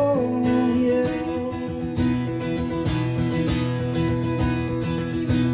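Acoustic guitar strummed in an instrumental break of a live song, the singer's last held note tailing off at the start.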